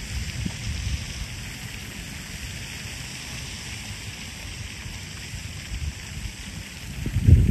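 Steady hiss of splashing or running water, with wind buffeting the microphone in low rumbles that grow stronger near the end.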